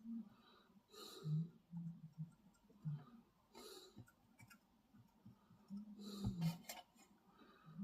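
A person breathing close to the microphone, with soft low hums between the breaths and a few light clicks about six and a half seconds in.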